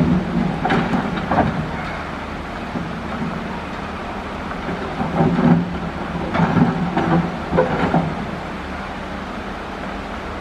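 Caterpillar excavator's diesel engine running steadily while the bucket digs coral rock, with bursts of rock clattering and scraping about a second in and again from about five to eight seconds in.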